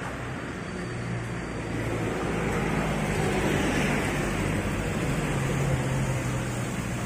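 Road traffic: a motor vehicle's engine running as it passes, louder in the middle.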